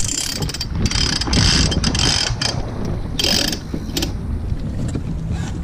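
Sailboat deck hardware ratcheting in quick rattling clicks for about two and a half seconds, then again briefly just past the three-second mark, over a steady low rumble of wind on the microphone.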